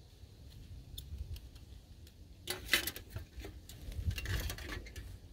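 Light metal clicks and clinks of a Firebox Nano folding stove being assembled, its hinged panels and flap set into the metal tin tray. A few scattered ticks come first, then a busier run of clinks in the second half.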